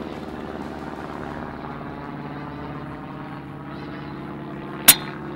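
A steady mechanical drone with several low tones runs throughout, and near the end a single sharp crack of a PCP air rifle firing a heavy slug.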